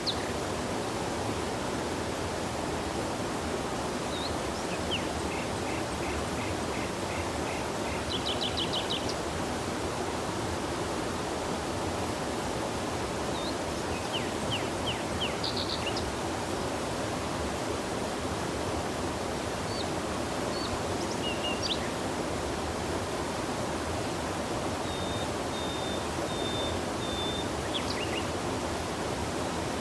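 Steady rush of river water, with songbirds calling now and then over it: a run of short chirps, a quick trill, and near the end a few high whistled notes.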